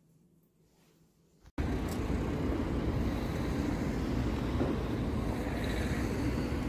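Faint room tone, then after a sudden cut about a second and a half in, a loud steady rumble of street traffic.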